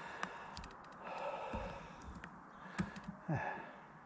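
A man breathing out audibly twice, the second time with a short voiced sigh, along with a few light clicks.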